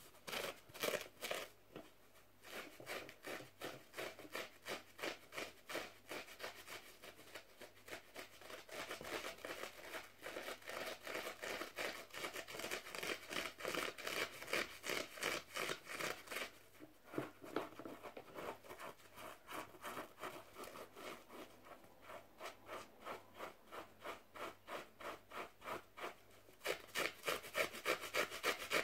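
Fingers scratching and rubbing a bath sponge right at the microphone in quick, regular strokes, about three a second, with a few short pauses. The strokes are louder near the end.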